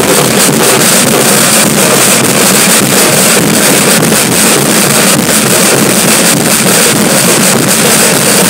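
Batucada drum group playing loud and steady: many large surdo bass drums and smaller stick-played drums beating together in a rhythm, the recording overloaded into a dense, noisy din.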